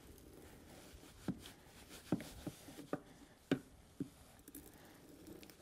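Knife slicing a block of provolone cheese: several short, sharp knocks spaced irregularly through the middle, over low room noise.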